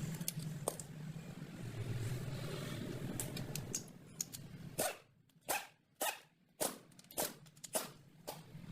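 A low steady hum, then a series of about eight sharp knocks or clicks, irregularly spaced, over the last few seconds.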